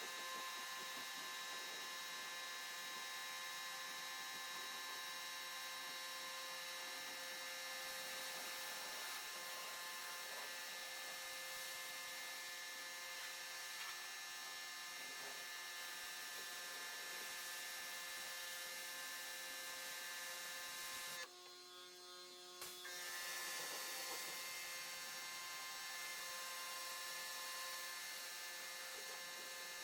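Pressure washer running steadily: a motor drone with a hiss of high-pressure water spray. About 21 seconds in, the spray stops for a second and a half while the motor keeps running, then starts again.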